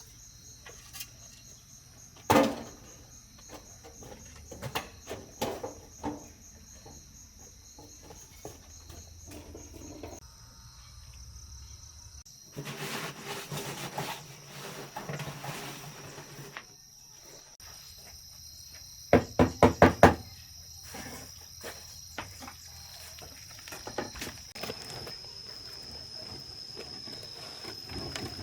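Insects trilling in a steady, high, even tone, under scattered knocks and clatter. Partway through comes a few seconds of noise, and a little later a quick run of five sharp, loud knocks.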